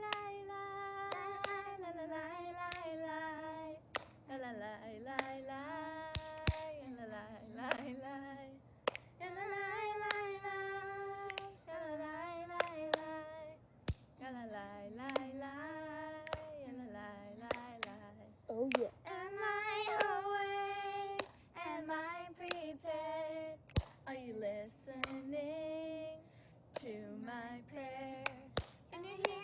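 Two girls, one older and one younger, singing a prayer song together in short phrases ('Ya la la la la', 'Are you listening to my prayer?'), with sharp hand claps at irregular intervals.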